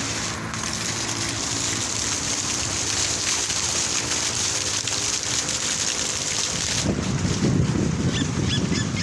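Fountain water spraying and splashing, a steady rushing hiss. About seven seconds in the sound turns lower and rougher, like wind buffeting the microphone.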